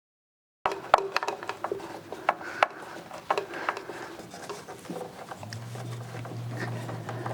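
Irregular small clicks and knocks of screws and a hand screwdriver being worked into the wooden seat frame of a teak rocking chair. A steady low hum joins about five seconds in.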